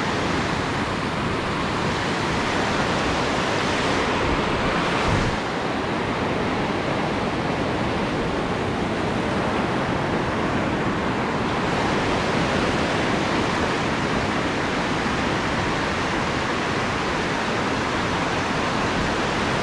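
Ocean surf washing and breaking in shallow water, a steady loud rush of foamy water that swells briefly about five seconds in.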